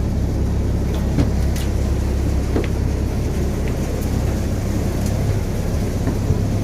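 Steady low drone of a passenger aircraft's engines and airflow heard inside the cabin, with a few faint clicks.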